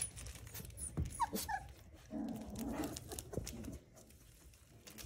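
Standard poodle puppies playing with plush toys: a few short high whimpers or yips about a second in, then a longer low puppy growl around two seconds in, with scuffling and small knocks throughout.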